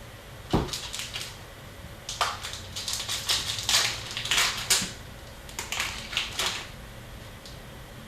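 Hockey card packs and cards being handled: a single thump, then a few seconds of crisp crinkling and snapping as pack wrappers are worked open and cards are slid out.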